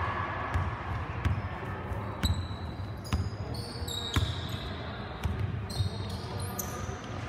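Basketball bouncing on a hardwood gym floor as it is dribbled upcourt, a thump about once a second, with sneakers squeaking on the court from about two seconds in.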